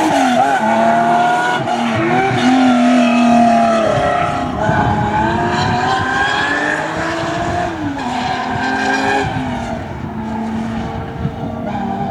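Porsche racing car's flat-six engine under hard driving, its note rising under acceleration, dropping sharply at gear changes, and falling as it slows.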